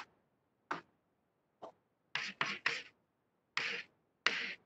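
Chalk scratching on a blackboard as words are written: about eight short strokes, some in quick runs of two or three, with short silent gaps between them.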